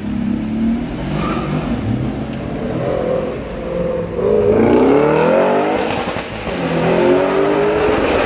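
Audi RS6 Avant's V8 exhaust accelerating past, rising in pitch in two pulls, the first and loudest about halfway through, the second near the end.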